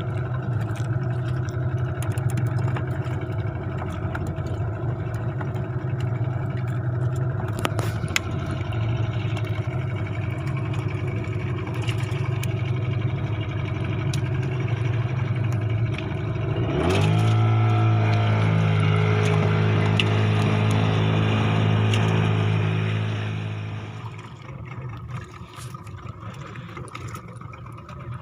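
Fishing boat's engine running steadily; about 17 seconds in it revs up sharply, holds the higher speed for several seconds, then throttles back and runs much quieter near the end.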